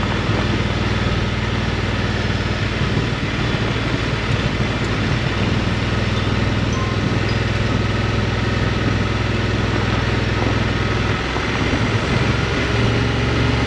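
Adventure motorcycle engine running steadily at low revs on a gravel road, with wind and road noise. The engine note dips briefly about eleven seconds in, then picks up again near the end.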